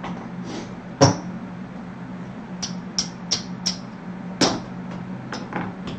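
Casino chips clicking together as they are handled, stacked and racked: a string of short, sharp clacks, loudest about a second in and again past the middle, over a steady low hum.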